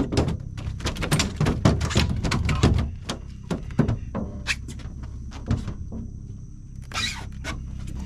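Quick irregular knocks and thumps on a boat deck as a freshly caught black drum flops and is handled. They come thick for about three seconds, then sparser, with a brief rustle about seven seconds in.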